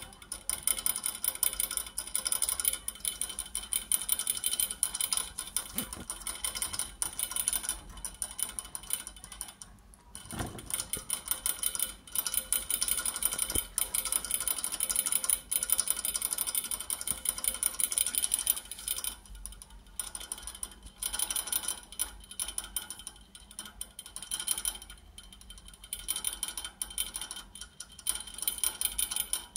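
A young rabbit gnawing on a metal rod in its cage: a fast run of scraping, clicking teeth-on-metal sounds in bouts broken by short pauses.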